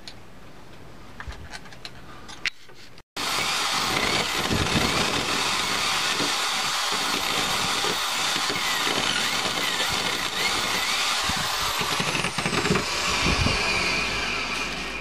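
Corded electric drill with a wood bit boring into timber: it starts about three seconds in and runs steadily with a whine for about ten seconds, then dies away near the end.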